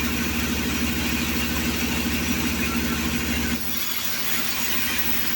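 An engine or motor running steadily with a low, even pulsing hum; the low throb drops away about three and a half seconds in.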